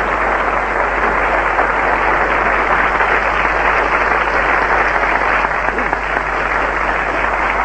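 Studio audience applauding: a steady wash of many hands clapping, easing off slightly near the end.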